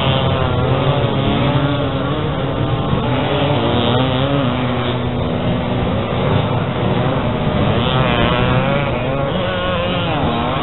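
Several vintage enduro motorcycles racing on sand, their engines revving up and down together in a continuous wavering drone.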